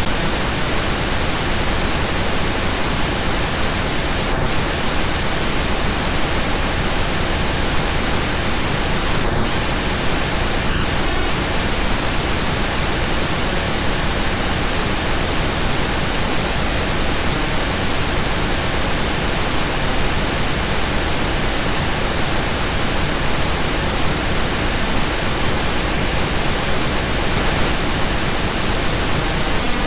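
Steady pink noise, an even full-range hiss at constant loudness, with short faint high tones that come and go every second or two.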